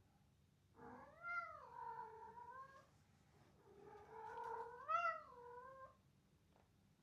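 Kitten meowing twice: two long, drawn-out meows of about two seconds each, each rising and then falling in pitch.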